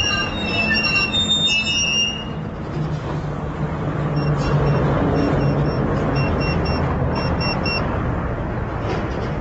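A pager beeping: a run of short, high, evenly spaced beeps in small groups, a page coming in. Street traffic noise runs underneath, with a vehicle engine droning while the beeps sound.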